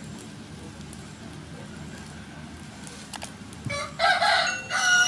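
Rooster crowing: one loud cock-a-doodle-doo that starts about four seconds in, after a few seconds of low outdoor background.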